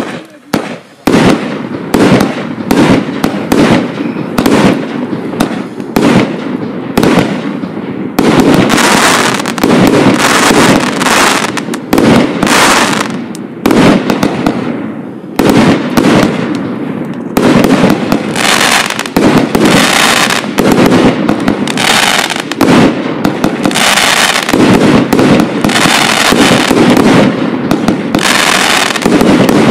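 'Black Magic' firework firing shot after shot in quick succession, launches and bursts packed close together. From about 8 seconds in the bursts come thicker and louder, with crackle.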